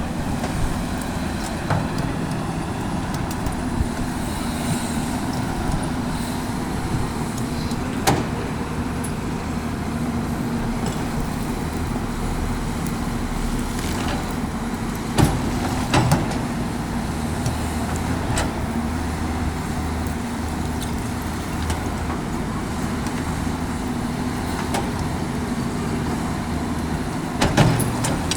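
Caterpillar 329D L hydraulic excavator's diesel engine running steadily while loading excavation spoil, with a few sharp knocks scattered through.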